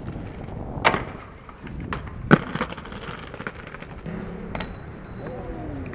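Skateboard wheels rolling on pavement with sharp board slaps and knocks. Two loud cracks come about one second and two and a half seconds in, the second the loudest.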